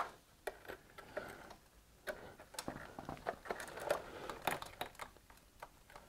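Irregular small clicks and taps of hands handling the lamp sockets and plastic housing under a microscope head while the lamps are plugged back in, with a sharp click right at the start.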